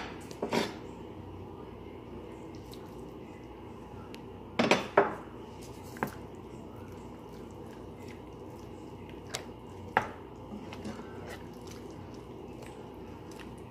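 A few scattered knocks and clicks of kitchen utensils against a frying pan as food is added and stirred. The loudest is a quick pair about five seconds in, with single knocks about a second later and near ten seconds, over a steady background hum.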